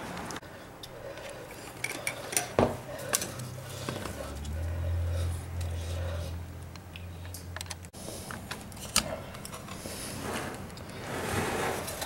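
Scattered light clicks and clinks of small hard objects being handled, with a low hum for a few seconds in the middle.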